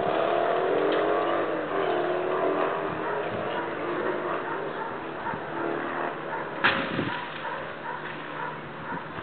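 A motor vehicle's engine going by on the street, its hum loudest at the start and sliding slowly down in pitch as it fades over the first few seconds. A single sharp click comes about two-thirds of the way through.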